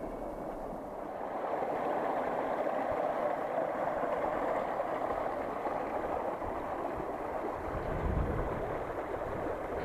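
Shallow mountain stream running over stones, a steady rushing of water that swells about a second in.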